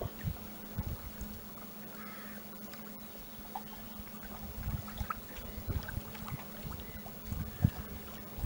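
Lake water lapping and trickling, with irregular low slaps and small drips over a steady low hum; a sharper knock comes near the end.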